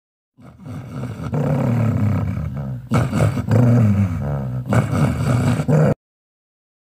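A monster's low, drawn-out growl. It starts about half a second in, grows louder, and cuts off suddenly about six seconds in.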